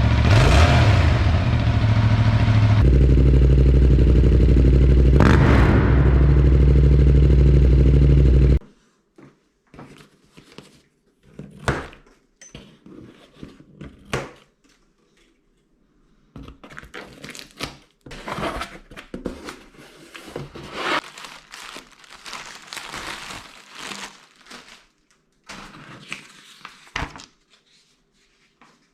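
2021 Yamaha MT-07's parallel-twin engine through a MIVV GP Pro Carbon exhaust, running loud with one rev about five seconds in, cutting off suddenly about eight seconds in. After that come quieter, scattered thunks, scrapes and crinkling of packaging being handled.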